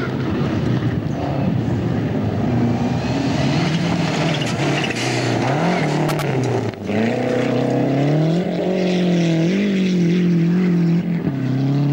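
Rally car engine revving hard on a gravel stage, its pitch climbing and dropping back several times as the driver shifts gears, with loose gravel and tyre noise under it.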